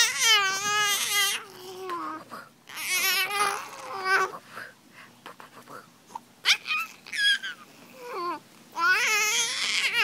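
A high-pitched voice making wavering, crying-like wails and babbling noises in four bursts, the longest at the start and near the end.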